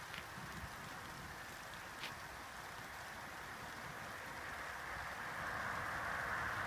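Steady rain, with a few sharp drop hits near the start and about two seconds in, and a car's tyres hissing on the wet road as it approaches, growing louder through the second half.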